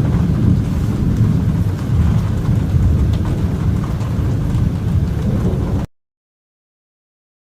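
Thunder rumbling continuously, deep and steady, with rain hissing. The sound cuts off abruptly about six seconds in.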